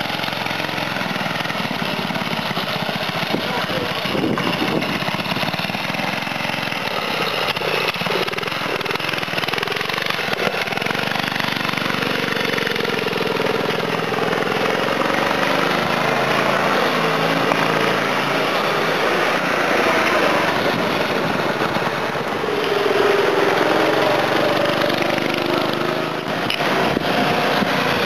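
Go-kart's small gas engine running under way, its pitch rising and falling as the throttle is opened and eased, with a louder stretch near the end as the kart comes back close.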